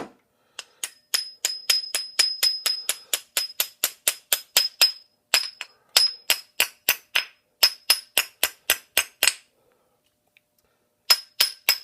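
Hammer taps driving a pin in, about three light strikes a second, each with a short metallic ring. They stop a little over nine seconds in, and three more taps come near the end.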